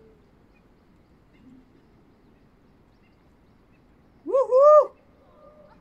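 Quiet outdoor background, then about four seconds in a single loud call of about half a second that rises and wavers in pitch, trailing off faintly.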